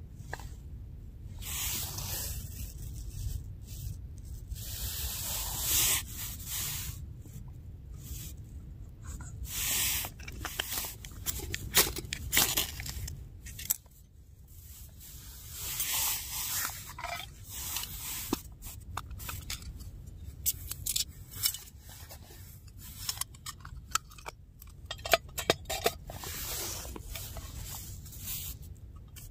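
Knife cutting vegetables and cheese for a pan dish: irregular scraping and crunching cuts with sharp clicks now and then.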